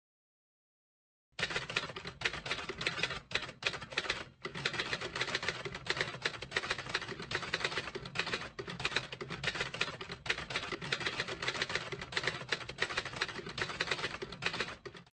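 Typewriter keys clacking in a rapid, continuous run of keystrokes: a typing sound effect laid under on-screen text being typed out. It starts after about a second of silence, with a couple of short pauses around the fourth second.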